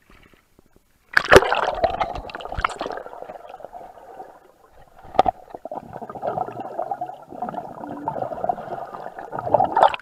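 Action camera in its waterproof case plunging into a swimming pool with a sharp splash about a second in, then muffled underwater rushing and bubbling as a swimmer blows bubbles close to the lens. There is a brief lull midway, broken by a single click.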